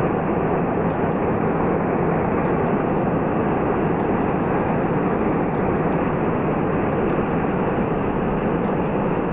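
Large rockfall pouring down a mountainside: a steady, loud rushing noise that neither rises nor fades.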